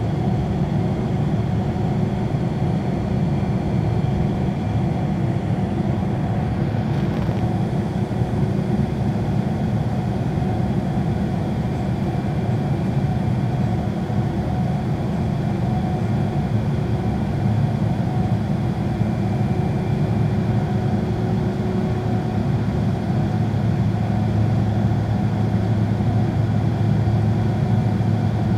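Cabin noise of a Boeing 767-300ER heard from a window seat over the wing: its General Electric turbofans running at low power, a steady low rumble and hum, while the plane taxis and holds before takeoff. A low hum grows stronger in the last few seconds as the engines begin to spool up.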